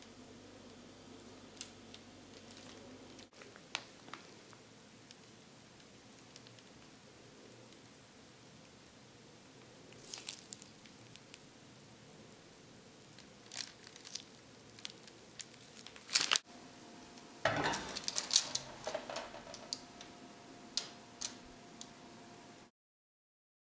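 Cookie dough squeezed from a piping bag through a metal star tip onto a parchment-lined baking tray: soft squishing and crinkling of the bag and paper, with scattered light clicks. About three quarters through comes a louder stretch of rustling and clatter with a brief ringing tone.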